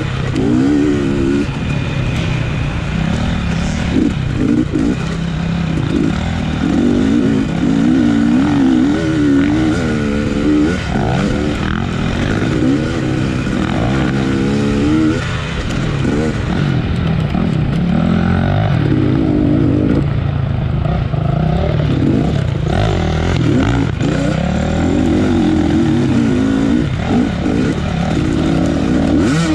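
Dirt bike engine in an off-road race, its revs rising and falling over and over as the throttle is opened and closed.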